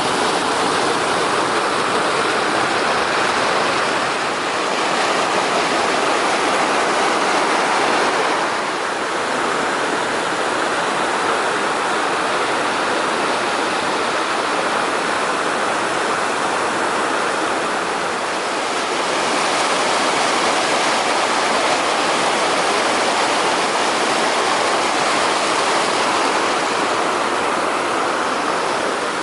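Water of a river waterfall rushing steadily and loudly, with the sound shifting slightly in strength a few times.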